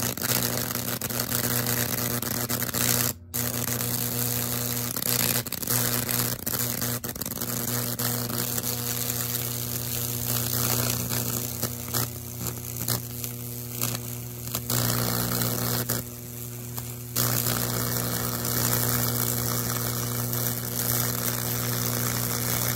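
Microwave-oven transformer humming steadily under high-voltage load while the current arcs and burns through baking-soda-wetted wood between two nail electrodes, with a continuous crackling sizzle. The sound cuts out briefly about three seconds in.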